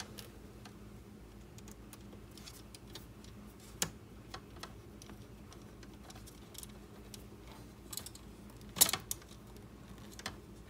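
Scattered small clicks and taps of screws and 3D-printed plastic parts being handled and fitted together while a frame is screwed up by hand. There is a sharper click about four seconds in and a louder short clatter near the end.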